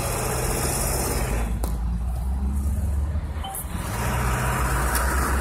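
Steady low engine and road rumble of a car driving on a highway, heard from inside its cabin.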